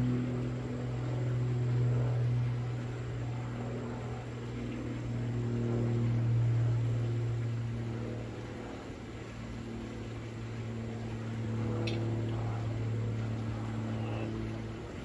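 Engine drone of an aircraft passing overhead: a steady low hum with overtones that slowly wavers in pitch and swells and fades, easing off near the end.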